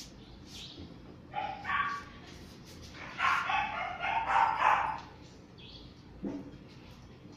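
A dog making high-pitched calls: two short ones about a second and a half in, then a louder, longer run from about three to five seconds in. A short knock near the end, as a food bowl is set down on the floor.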